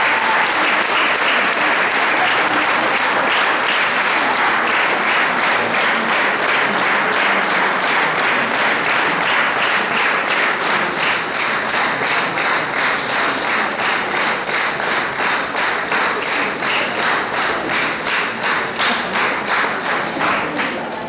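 Audience applause, many people clapping at once; about halfway through, the clapping falls into a steady rhythm of roughly two to three claps a second in unison.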